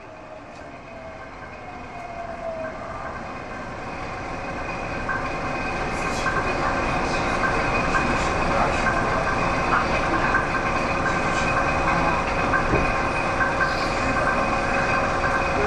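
Subway train pulling away and gathering speed, heard from inside the car: the running noise builds steadily over the first seven seconds or so, with a motor whine rising in pitch early on, then holds steady at speed with occasional faint clicks from the wheels.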